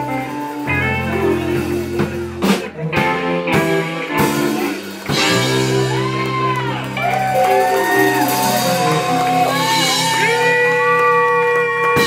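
Live soul/R&B band (saxophone, electric bass, keyboard and drum kit) playing the closing bars of a song with a female singer. A drum fill comes a few seconds in, then long held, bending notes carry over a steady bass toward the end.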